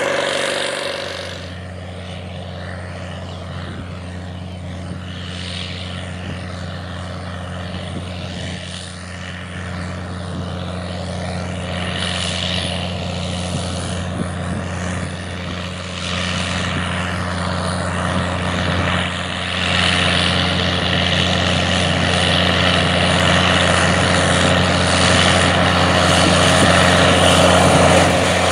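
International 4568 four-wheel-drive tractor's V8 diesel engine running steadily under load while pulling a tillage implement, a deep droning hum that grows louder as the tractor approaches.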